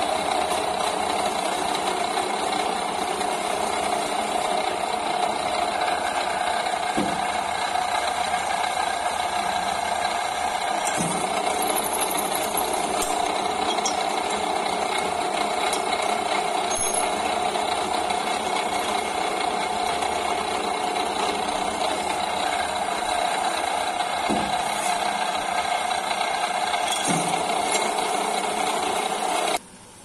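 Pillar drill press motor running steadily with a constant whine while drilling a hole through a flat steel bar, with a few light knocks.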